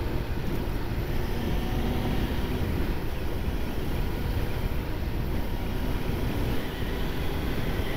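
Honda CBR900RR FireBlade motorcycle ridden at a steady road speed: the inline-four engine runs under steady wind rushing over the microphone, with no gear changes or sudden events.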